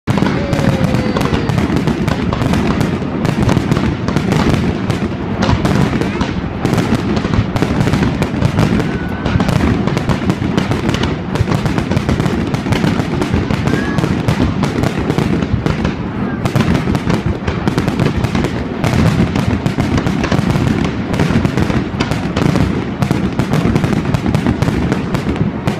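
Fireworks display: aerial shells launching and bursting in a continuous barrage of bangs and crackles, many each second, with no let-up.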